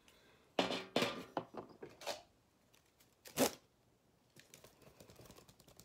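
Handling noises from a folding paper-and-bamboo hand fan: a few short rustling swishes, the sharpest about three and a half seconds in, then a faint quick flutter as the fan is waved.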